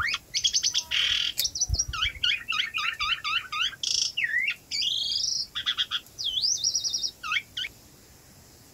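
A songbird singing a fast, varied song of repeated whistled notes, trills and swooping phrases, falling silent near the end.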